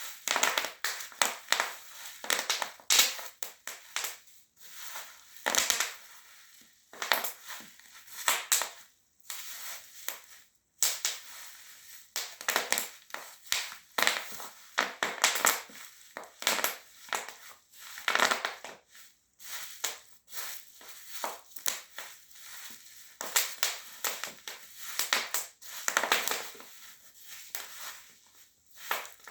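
Bubble wrap popping and crinkling under the black high heels treading on it: irregular clusters of sharp pops with crackling plastic, broken by short pauses.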